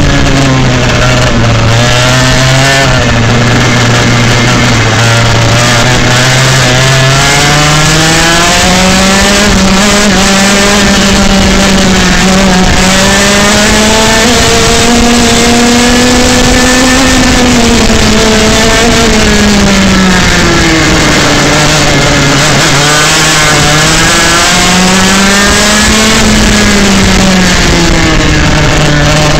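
125cc two-stroke kart engine running hard and loud right by the microphone, its pitch low and steady at first, then climbing through a long stretch, dropping, and climbing and dropping again near the end as the kart accelerates and slows through the corners.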